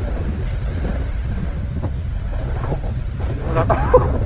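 Steady low wind rumble on the microphone with road noise from an electric motorcycle riding in traffic; the motor itself is not heard over it. A few short gliding pitched sounds come in near the end.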